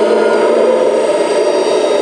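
Kabolite K350-200 1/14-scale RC hydraulic excavator running, with a steady whine of several tones that shift slightly in pitch, from its electric hydraulic pump mixed with the engine sound played by its sound module.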